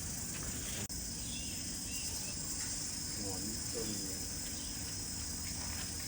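Steady high-pitched chirring of an insect chorus, with a brief break about a second in and faint distant voices.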